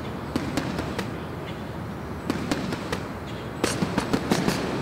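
A series of sharp, irregular cracks, with a quick run of them near the end.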